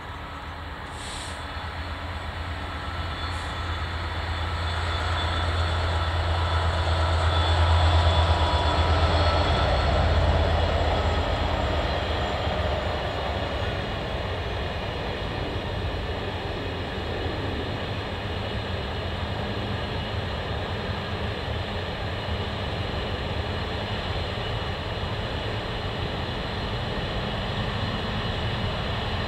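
Class 66 diesel locomotive's two-stroke V12 engine drones past with a deep low note, getting louder to a peak about eight seconds in and then fading, followed by the steady rumble and clatter of a long container freight train's wagons rolling by on the rails. Two brief high squeaks come in the first few seconds.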